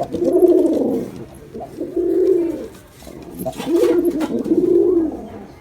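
Male domestic pigeon cooing: a run of low, arching coos in three or four phrases with short pauses between them.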